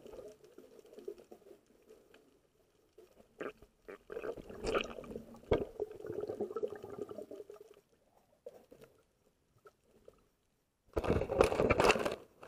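Muffled underwater sound picked up by a camera in the sea: water gurgling with a few sharp knocks, then loud splashing and water movement near the end.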